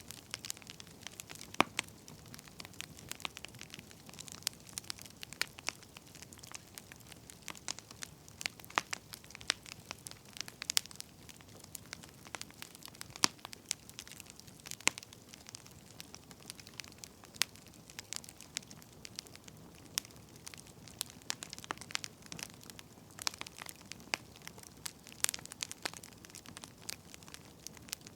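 Wood fire crackling, with irregular sharp pops and snaps from the burning logs over a soft steady hiss.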